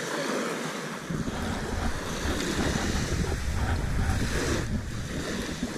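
Small waves washing onto a pebble beach, with wind buffeting the microphone as a low rumble from about a second in.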